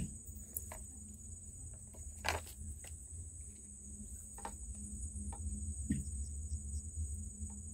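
A steady, high-pitched chorus of insects such as crickets, over a low rumble, with a few short knocks, the loudest about two seconds in.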